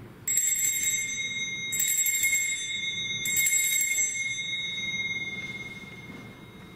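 Altar bell (sanctus bell) rung three times at the elevation of the consecrated host, marking the moment of consecration. Each ring is a bright jangle, over a clear ringing tone that fades away about six seconds in.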